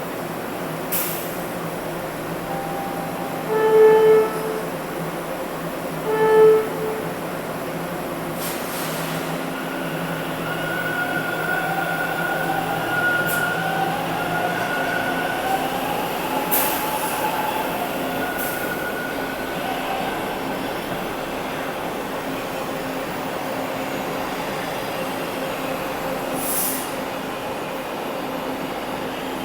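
TTC Line 2 subway train running through the station over a steady rumble, sounding two short horn blasts about two and a half seconds apart a few seconds in: the warning to workers at track level. Its wheels then squeal in long high tones through the middle of the run.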